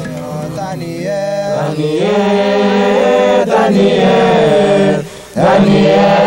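Group of men's voices chanting together in long held notes that slide between pitches, with a short break about five seconds in before the chant resumes.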